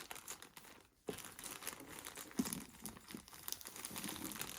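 Parcel packaging crinkling and rustling as it is handled and pulled open, with small irregular crackles; the sound briefly cuts out about a second in.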